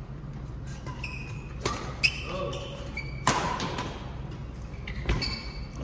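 Badminton rally: rackets hitting the shuttlecock with about four sharp cracks a second or so apart, with short squeaks of shoes on the court floor between the hits.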